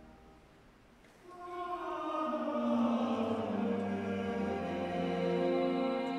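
A mixed choir enters about a second in, after a quiet, fading moment, and sings sustained chords that swell, with long church reverberation.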